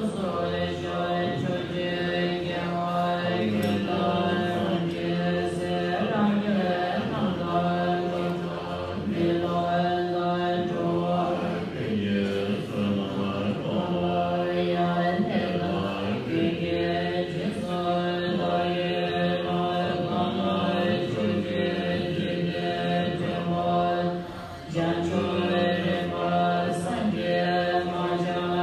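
Group of voices chanting a Tibetan Buddhist long-life liturgy in unison on a low, steady reciting pitch, with a short break for breath about three-quarters of the way through.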